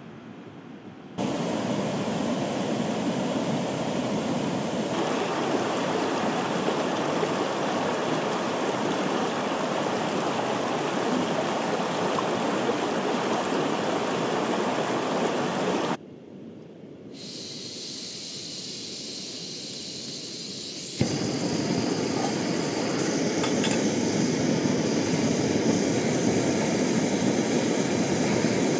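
A small river running over rocks, heard as a steady rush. After a quieter stretch, a sharp click and then a canister gas stove burner running steadily under a pot.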